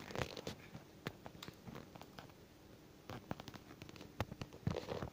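A toddler eating avocado with his fingers: scattered soft clicks, small mouth smacks and handling noises, busier and a little louder in the last two seconds.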